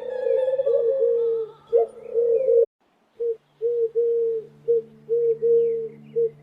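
Doves cooing in a run of repeated low phrases. The sound cuts out completely for about half a second near the middle, and faint short chirps from other small birds come in over it.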